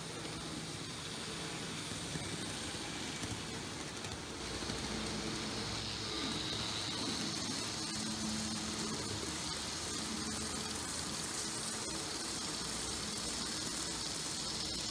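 Z-scale model trains running on the layout: a steady whir of small locomotive motors and wheels rolling on the track, with a faint shifting whine. It grows a little louder about four and a half seconds in as a freight train passes close by.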